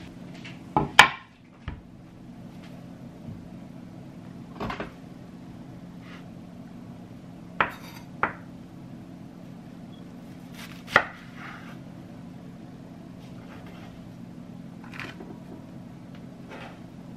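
Ceramic knife cutting enoki mushrooms and knocking on a bamboo cutting board: a few separate sharp knocks several seconds apart, the loudest about a second in and again near eleven seconds, over a steady low hum.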